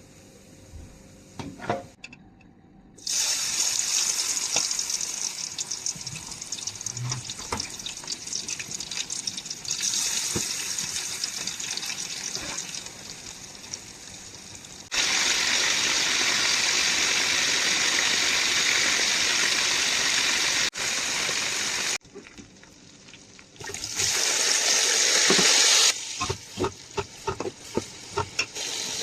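Kitchen tap running into a sink, water rushing and splashing. It is turned on and off several times: on for long stretches, off briefly, then on again. Near the end come short clatters of kitchenware.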